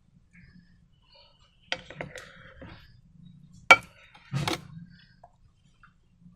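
Handling sounds: a few light clicks and taps, then a single loud sharp click, followed moments later by a short knock and rustle, like small hard containers and tools being set down and picked up.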